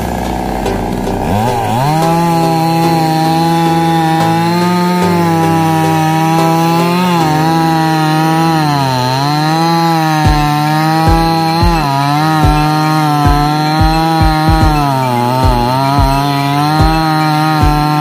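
Petrol chainsaw revving up about two seconds in, then running at high speed as it cuts through a fallen neem log. Its pitch dips several times as the chain bogs under load in the wood.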